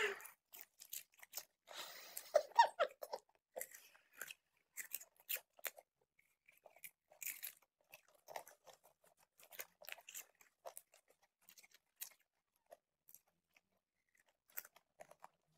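Popcorn being chewed close to the microphone: irregular crisp crunches and small mouth sounds.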